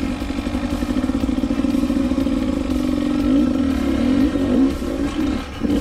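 Dirt bike engine running at low revs under load, its note rising and falling a few times as the throttle is worked.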